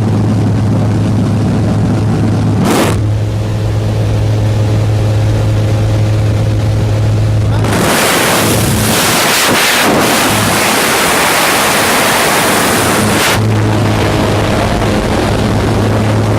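Jump plane's engine droning steadily inside the cabin. About eight seconds in, a loud rush of wind drowns it for roughly five seconds, then the drone returns.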